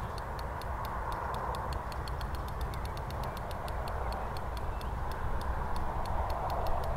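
Fishing reel ticking with a fast, uneven run of small clicks while a hooked fish is played, over a steady rushing background.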